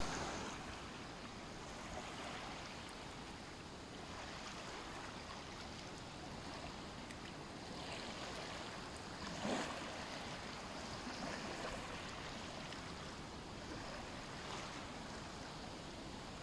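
Small waves lapping gently at a sandy shoreline: a steady wash of water with a few soft swells, the strongest about halfway through.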